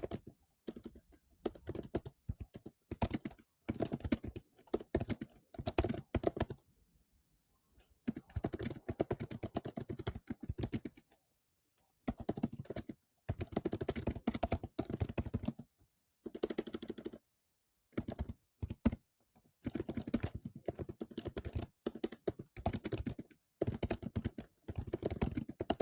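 Typing on a computer keyboard: runs of rapid key clicks in bursts, broken by pauses of a second or two.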